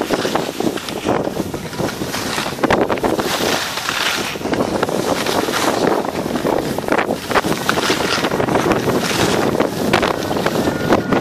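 Wind rushing over a phone's microphone during a downhill ski run, with skis hissing and scraping on the snow in frequent short rasps.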